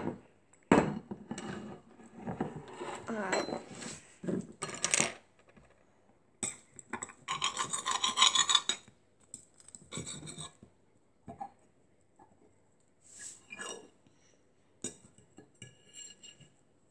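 A metal fork scraping and clinking against a plate as a pancake is cut, in scattered short strokes with a longer, denser scrape near the middle.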